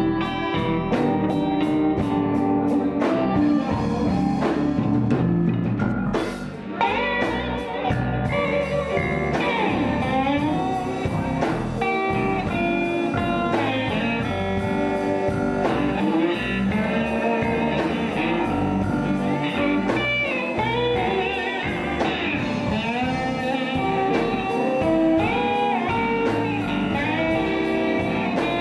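Live electric blues band playing an instrumental passage: electric guitars and keyboard over bass and drums, with guitar notes bending up and down in pitch.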